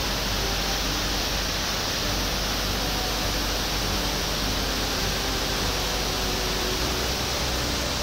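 Steady rushing of a waterfall in spate, swollen brown floodwater pouring over rock ledges into a river gorge, an even, unbroken wash of water noise.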